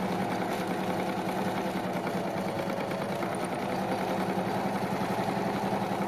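Pfaff electric sewing machine running at a steady speed, sewing a straight lockstitch seam with an even, rapid stitch rhythm.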